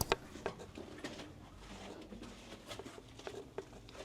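Footsteps walking at a steady pace, heard as faint, light taps.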